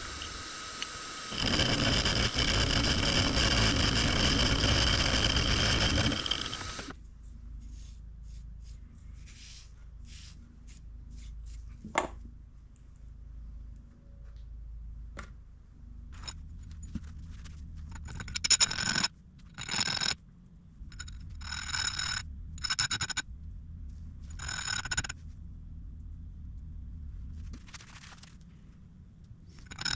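A shop power tool running, then loud grinding or abrasive contact against metal for about five seconds, stopping about seven seconds in. After that come intermittent metallic scraping strokes and clicks with a ringing edge, as small metal parts are cleaned up and handled.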